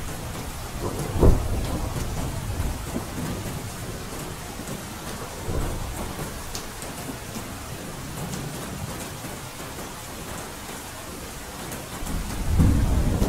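Steady rain falling, with thunder: a sharp clap about a second in, and a low rumble of thunder building near the end.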